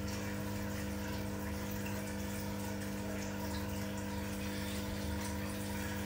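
Steady low hum with several held tones above it, unchanging throughout.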